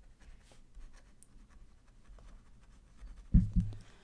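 Pen scratching on paper while writing notes on the back of an envelope, then a couple of low thumps near the end.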